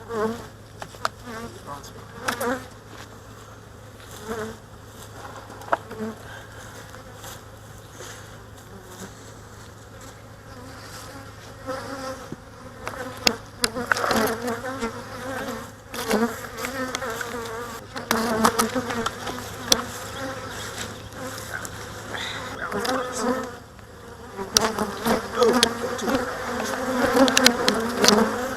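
Swarm of honey bees buzzing around an opened hive, a wavering drone that grows louder near the end, with scattered knocks and clicks of hive parts being handled.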